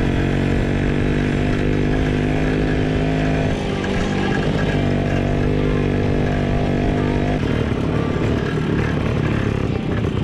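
WSK 125's single-cylinder two-stroke engine running at a steady speed while ridden on a dirt track. The level dips slightly about three and a half seconds in. From about seven and a half seconds the even engine note gives way to a rougher, noisier sound.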